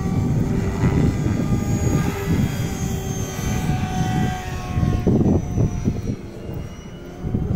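Electric 500-size RC helicopter flying: a steady whine from its brushless motor and rotor, sagging slightly in pitch as it moves off, over a low, uneven rumble. It grows fainter near the end.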